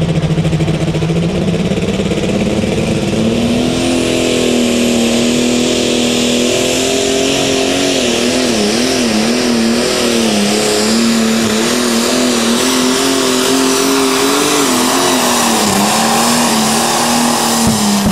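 Modified super stock pulling tractor engine at full throttle hauling a weight-transfer sled. It revs up at the launch, with a high whine climbing over the first few seconds, then holds a high pitch that wavers several times as the tractor bounces down the track. The pitch drops off near the end as the throttle comes off.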